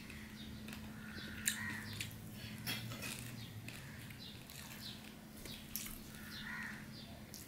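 Close-up eating sounds: wet chewing and lip-smacking with small clicks as rice is eaten by hand, a few sharper smacks standing out, over a low steady hum.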